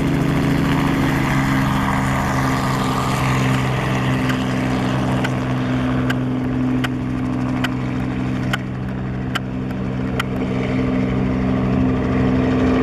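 Robinson R44 helicopter running at take-off power as it lifts off and flies away: a steady drone from its six-cylinder piston engine and two-blade rotor. The higher part of the sound fades after a few seconds as it moves off.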